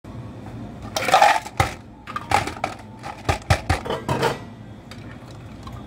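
Ice cubes clattering into a clear plastic cup: a rattling burst about a second in, then a run of sharp clinks that stops a little past the middle.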